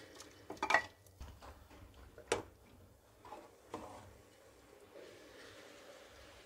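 A steel spoon knocking and scraping against steel pots as cooked keema is scooped into the kadhi and stirred: a few sharp taps, the loudest about a second in and again after two seconds, then quieter stirring.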